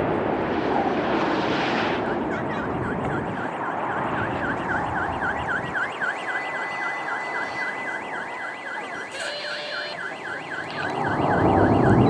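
An electronic alarm warbles, its tone sweeping up and down about four times a second, over the broad rush of a fighter jet's engines. The jet noise swells again near the end.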